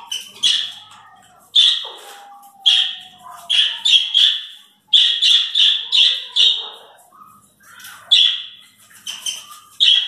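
Parrots squawking: a run of loud, shrill, harsh calls in quick clusters, with a short lull about seven seconds in. A fainter, slowly falling whistle sounds about two seconds in.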